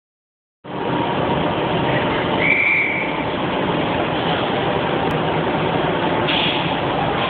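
Sydney Tangara electric train standing at an underground platform with its doors open, a steady running noise filling the station. A brief high-pitched tone sounds about two and a half seconds in.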